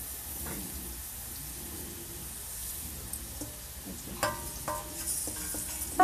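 Onions sizzling steadily in oil in a pan on a gas stove. Roasted flaxseed is tipped from a steel plate into a steel mixer-grinder jar, and the plate knocks against the jar in two sharp, ringing metallic clinks about four seconds in, with a louder clink at the very end.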